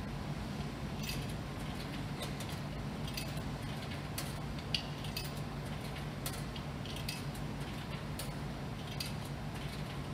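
Powered Wittern vending machine humming steadily, with scattered light metallic clicks and clinks as its keypad and front panel are handled.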